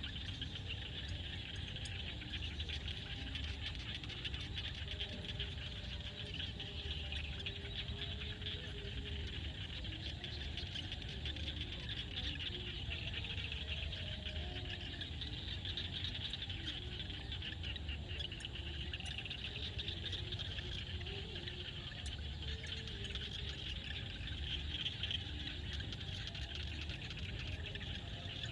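Frogs calling in a steady night chorus: a continuous high-pitched trill with short low calls scattered over it, and a low rumble underneath.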